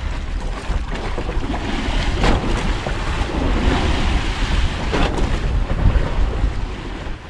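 Wind buffeting the microphone over the wash of the sea around a small boat, with a low rumble and two short sharp clicks, about two seconds in and again about five seconds in.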